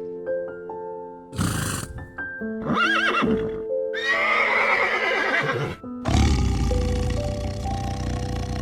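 Horse whinnying over background music: a short call a little before three seconds in, then a longer shaky whinny of nearly two seconds about four seconds in. A steady noisy sound follows from about six seconds in.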